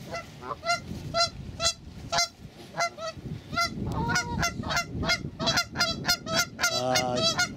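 Nesting geese honking over and over, the calls coming thicker and overlapping from about halfway, with a longer, lower call near the end: the birds are disturbed by a person close to their nests.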